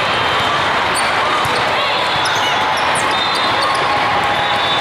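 Steady din of a large indoor hall holding many volleyball matches at once: crowd chatter mixed with scattered sharp hits and bounces of volleyballs.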